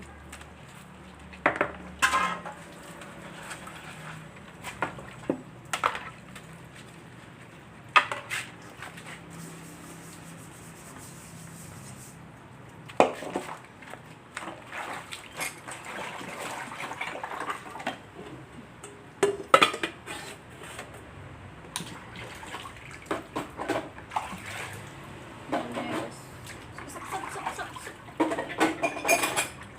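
Kitchen work: irregular clinks and knocks of utensils against pots and dishes, with water splashing at times.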